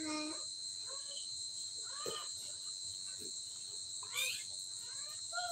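Crickets chirring steadily in a continuous high-pitched chorus, with a few short, high cries breaking in, one a quick rising squeal about four seconds in.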